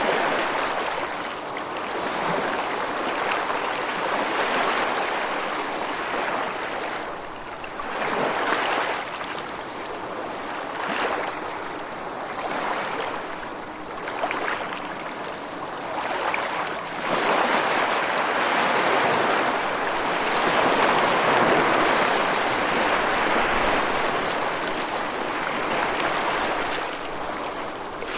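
Rushing water: a continuous hiss that swells and eases every few seconds, fullest through the second half.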